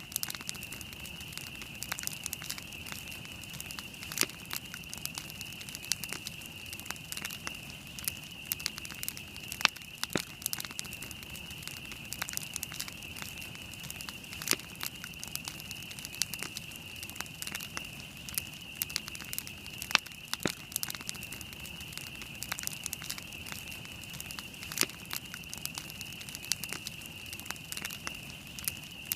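Wood campfire burning, crackling and popping with irregular sharp snaps over a steady high hiss.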